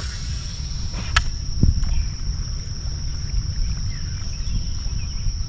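Outdoor ambience on a kayak: a steady low rumble and a steady high insect drone, with one sharp click or knock about a second in.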